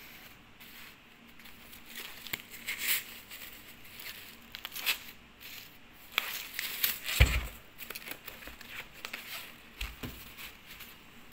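Thin wrapper and foam net sleeve around a large pear crinkling and rustling in irregular bursts as hands unwrap it. Two dull bumps about seven and ten seconds in, the first being the loudest sound.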